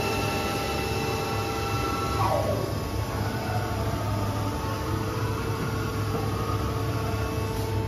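Haas TL-25 CNC lathe spindle running at speed with a steady whine, then about two seconds in spinning down with a quick falling whine as the program's dwell ends and the spindle-stop command is given. The machine's steady low hum carries on after it.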